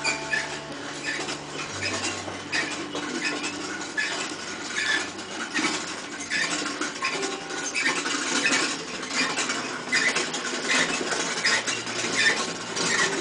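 Hand-cranked stovetop popcorn popper being turned on the burner: the crank gearing and stirring paddle squeak and click in a repeating rhythm, about one to two squeaks a second.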